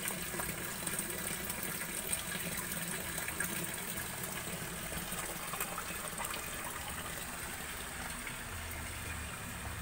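Steady rush of running water in a shallow concrete tank of catfish fry.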